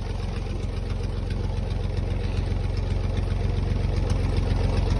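1981 David Brown 885 tractor's three-cylinder diesel engine running steadily at low revs, a little louder toward the end.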